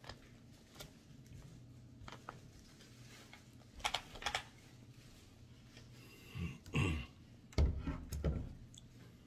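Sharp plastic clicks and light knocks as an RC truck's wheel is handled and pushed onto its hex hub, with a few louder, duller knocks about two-thirds of the way through.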